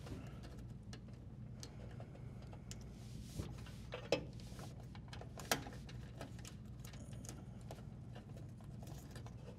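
Faint clicks and rustling of electrical wires with plastic wire nuts being handled and pushed into a dishwasher's junction box, with a few sharper clicks around the middle, over a low steady hum.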